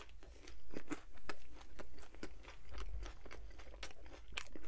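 A person chewing a mouthful of pizza crust dipped in creamy garlic sauce, close to the microphone, with many short, irregular mouth clicks.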